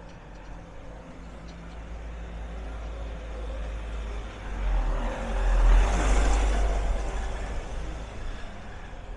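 A motor vehicle's engine running close by: a steady low rumble that swells loudest about halfway through and then fades.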